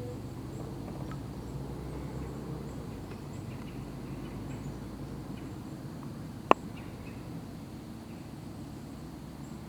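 Faint bird calls, scattered high chirps, over a steady low background noise, with a single sharp knock about six and a half seconds in.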